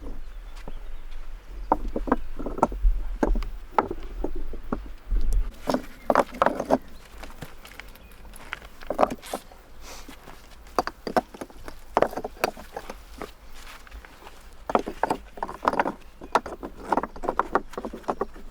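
Stones knocking and clacking against each other as they are handled and set into a dry-stacked stone wall, in sharp knocks at uneven intervals, with a low rumble under the first five seconds.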